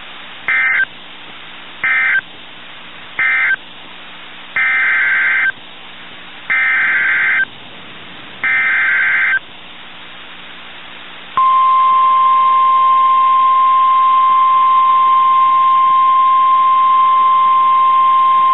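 Emergency alert broadcast signal for a severe thunderstorm warning. It starts with six screeching bursts of SAME digital header data, three brief and then three longer. About eleven seconds in comes the steady 1050 Hz warning alarm tone.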